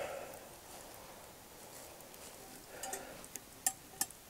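Faint rustling of movement at a campfire, then a few light metallic clicks near the end as a metal pot of water on the fire is handled.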